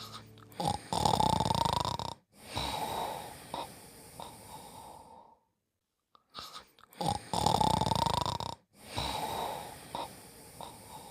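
Snoring, two full snores: each is a loud drawn-in snore of about a second and a half, followed by a longer, quieter out-breath, with about a second of silence between the two.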